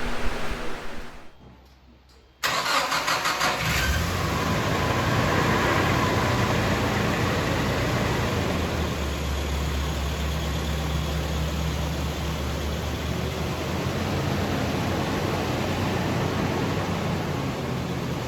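Car engine starting, with about a second of rapid pulsing, then idling steadily.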